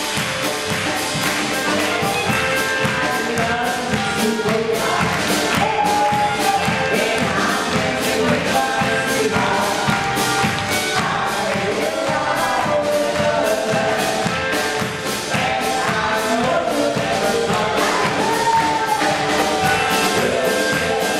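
Live dance band playing, with a steady drum beat under a melody line.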